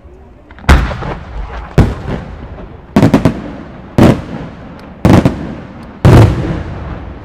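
Aerial firework shells bursting in the sky: a run of loud, sharp booms about a second apart, a few of them doubled, each followed by a fading echo.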